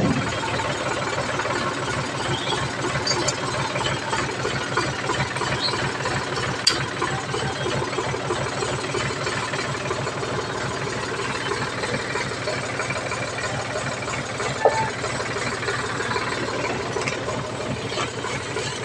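Sonalika DI 745 III Sikander tractor's diesel engine idling steadily with an even low rhythmic knock, and a few light clicks here and there.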